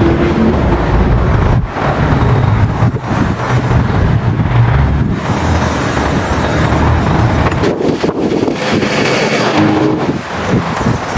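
Gasoline lawn mower engine running steadily while cutting overgrown grass.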